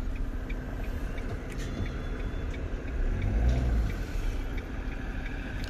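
Car moving slowly, heard from inside the cabin: steady engine and road rumble that swells louder about halfway through.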